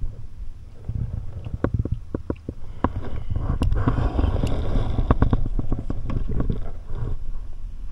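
Clicks and knocks of a fishing rod and spinning reel being handled and set into a rod holder on a plastic kayak, over low rumbling handling noise. The clicks come thickest in the middle.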